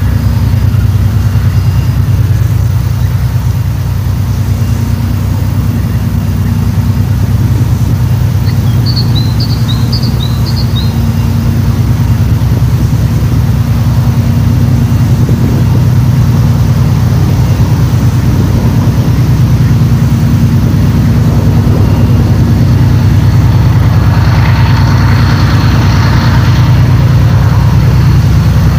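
Two-section 2TE10L diesel locomotive's two-stroke 10D100 engines working hard as it approaches hauling a 48-car train, a deep steady drone that grows a little louder toward the end. A bird chirps a few times about nine seconds in.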